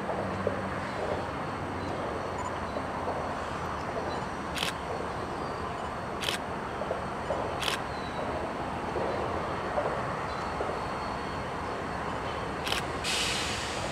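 Diesel freight locomotives running as they approach slowly, a steady low rumble, with a few single sharp clicks and a short hiss of air near the end.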